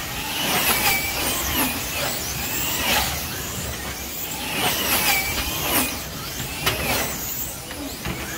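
Electric motors of 1/24-scale wing slot cars whining at high pitch, rising and falling again and again as the cars lap the track, with a few sharp clicks among them.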